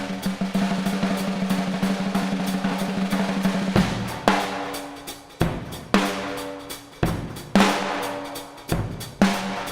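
Drum kit solo in a very large, echoing room. A rapid roll on a drum runs for about four seconds, then gives way to separate heavy accented hits, about one a second, each ringing out and fading.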